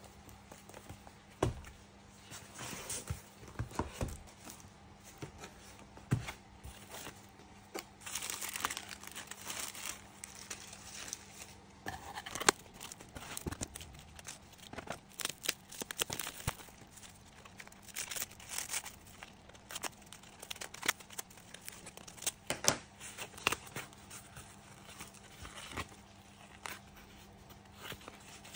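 Packaging being unwrapped by hand: paper and cardboard crinkling and rustling, with tearing of packing tape, in irregular rustles and sharp clicks.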